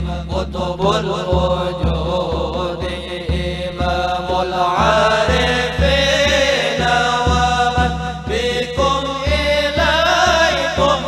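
Group of men chanting a devotional syair together in unison, over steady low beats of a large hand drum, about two a second.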